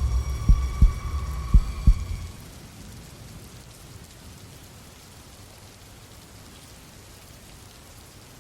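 Heartbeat sound effect: paired low thumps about once a second over a low hum and a thin high ringing tone, fading out about two seconds in. Then only a steady background of rain.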